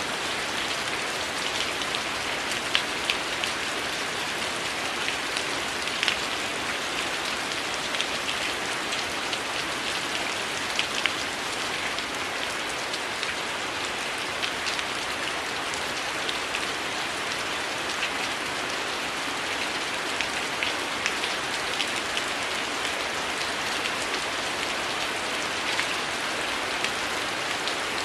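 Heavy rain falling steadily, an even wash of noise sprinkled with frequent small, sharp ticks.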